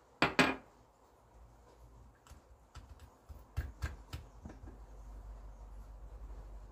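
Kitchen handling sounds as a cut lemon half is rubbed over an oven-roasted corn cob on a ceramic plate: two sharp taps just after the start, scattered soft clicks, and a low steady rubbing rumble from about halfway.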